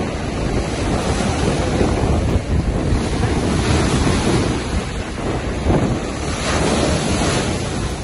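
Sea waves washing and breaking, with wind buffeting the microphone as a constant low rumble; the surf swells louder a few seconds in and again near the end.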